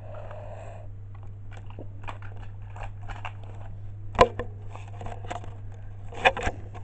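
Handling noise from model railway parts being taken out of polystyrene foam packaging: rustling, crackling and small clicks, with two sharper knocks about four and six seconds in, over a steady low hum.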